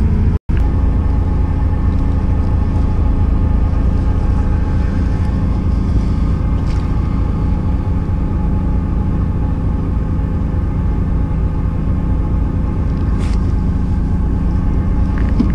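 Fishing boat's engine idling steadily: a low rumble with a steady hum over it. The sound drops out for an instant about half a second in.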